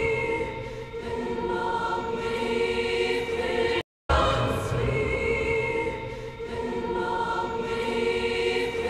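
MMAudio-generated soundtrack of sustained choir-like voices, about five seconds long, heard twice in a row: it stops near the four-second mark and starts again identically.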